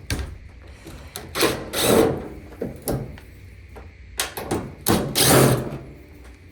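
Power drill-driver backing screws out of a dryer panel: two runs of about a second each and a shorter one, with clicks and knocks of handling between.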